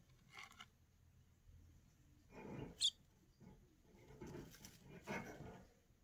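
Faint rustling and scuffing in four short bouts, with one sharp click about three seconds in.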